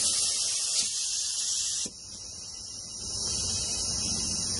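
Compressed air from a 100 PSI airline hissing into the cylinder of a Briggs & Stratton 675 Series engine held at top dead center on the compression stroke, and escaping: a lot of air is blowing straight out, a sign the cylinder is not sealing. The hiss is louder for about the first two seconds, then settles to a steadier, slightly quieter hiss.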